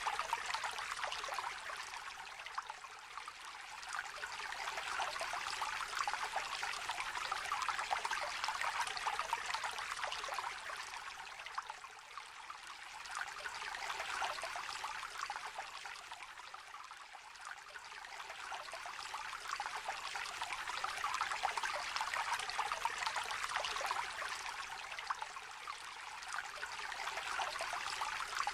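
Small river trickling and babbling, a steady wash of water that swells and eases every several seconds.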